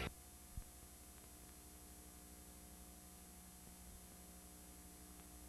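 Near silence: a faint steady hum and hiss, with one small click about half a second in.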